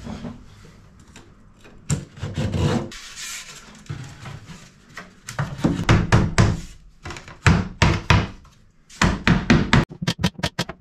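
A small hammer knocking V-joint tongue-and-groove boards into a bulkhead patch: a series of irregular wooden knocks. Near the end comes a fast, even run of sharp clicks from a pneumatic nailer fastening the boards.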